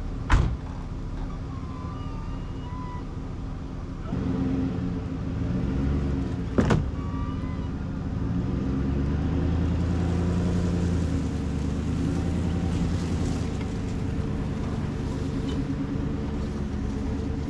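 Pickup truck engine idling, then revving about four seconds in and pulling steadily under load as it tows a car on a rope. Two sharp knocks ring out, one right at the start and one about six and a half seconds in.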